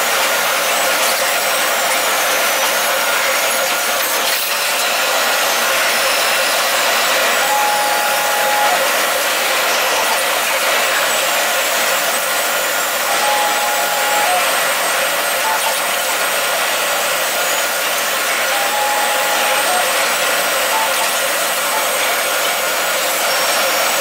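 Doosan DNM vertical machining centers milling metal workpieces: a steady, noisy cutting sound with faint thin whines. A short tone sounds three times, about five to six seconds apart.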